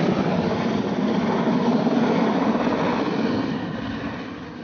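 Mil Mi-8/17-family transport helicopter flying overhead with a load slung beneath it on a long line: dense, steady rotor and turbine noise that starts to fade after about three seconds as it moves away.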